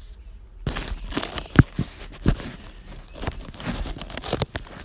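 Crinkling, rustling noise with many sharp clicks, starting well under a second in; the loudest clicks come about one and a half seconds in and again just over two seconds in.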